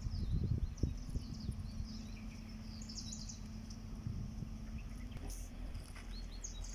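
Small birds chirping in short, scattered calls over a steady low background hum, with a few low knocks in the first second.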